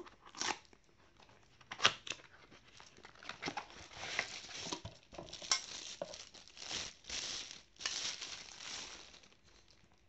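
Cardboard box and packaging being handled as a stainless-steel water bottle is slid out of its box: rustling and scraping, with a few sharp taps in the first couple of seconds.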